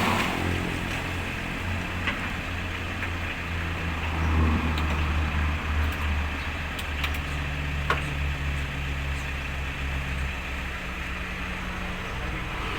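Vehicle engine running steadily at low revs, with a few faint clicks and knocks.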